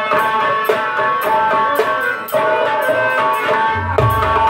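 Instrumental folk music: steady held notes over a regular jingling percussion beat, about two beats a second, with a deep drum coming in near the end.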